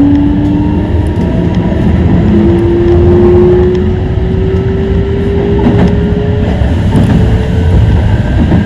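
Electric train running, its motor whine climbing slowly in pitch over a steady rumble as the train gathers speed.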